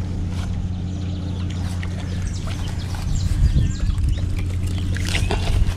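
A steady low hum, with scattered clicks and rustling and a few faint short high chirps.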